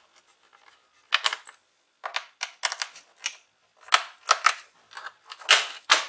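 Small screwdriver clicking and scraping against the screws and plastic base panel of a Lenovo ThinkPad E450 laptop as the screws are undone: irregular clusters of short, sharp clicks with brief gaps between them.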